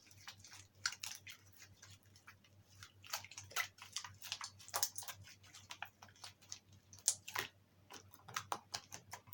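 Slime being kneaded and stretched by hand, giving irregular wet clicks and crackles at uneven intervals, a few of them louder.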